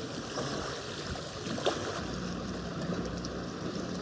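Lake water lapping with wind. About halfway through, the background changes to a steadier sound with a faint low hum.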